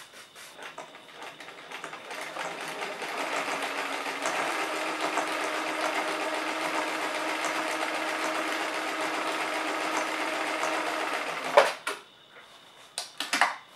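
Bernina Record 930 sewing machine stitching through fabric. It builds up speed over the first few seconds, runs steadily, and stops about twelve seconds in. A few sharp clicks follow near the end.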